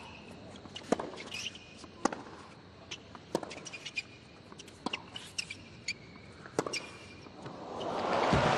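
Tennis rally on a hard court: rackets strike the ball about every one to one and a half seconds, with short shoe squeaks in between. Near the end the point finishes and crowd applause swells up and becomes the loudest sound.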